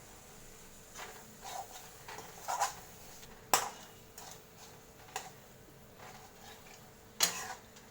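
A utensil knocking and scraping against a cooking pan as vegetables are stirred: scattered light clinks, with two sharper knocks, one about three and a half seconds in and one near the end.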